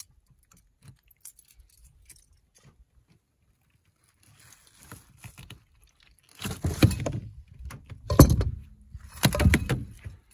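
A small barramundi flapping in a boat while the lure is worked free of its lip. Faint small clicks at first, then three loud bursts of flapping and knocking in the second half.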